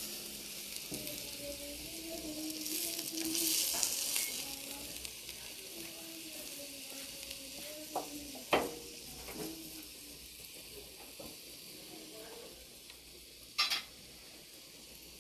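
Beef steak sizzling on a hot flat griddle plate, a steady hiss that is loudest about three to four seconds in. Chopsticks click sharply against the plate twice, once near the middle and once near the end.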